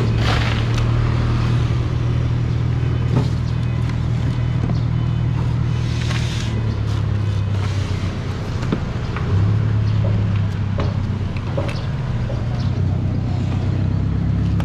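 A steady low engine hum, with scattered light knocks and clicks on top.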